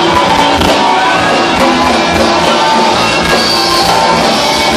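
Loud amplified music playing over a sonidero DJ sound system.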